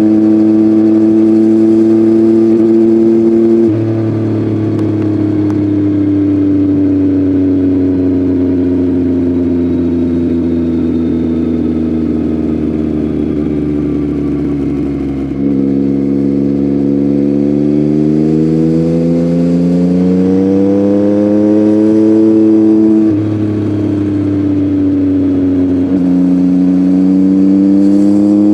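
Yamaha MT-09 three-cylinder 890 cc engine through an Akrapovic full-system exhaust, heard while riding. It holds steady, drops in pitch at a gear change, eases off and slows, then jumps up on a downshift and revs up steadily under acceleration. A sharp upshift drop comes later, and it climbs again near the end.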